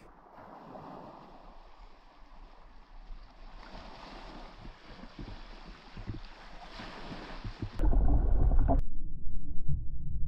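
Faint, steady hiss of wind and sea at the shoreline, then about eight seconds in a sudden switch to a loud, muffled low rumble of water heard through an underwater camera.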